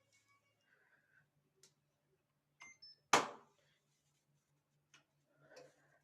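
A single sharp knock about three seconds in, just after a couple of small clicks, over a faint pulsing hum.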